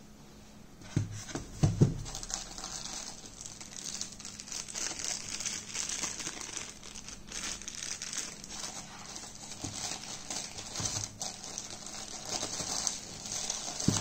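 Two knocks about a second in, then a plastic bag crinkling steadily as a bagged part is handled.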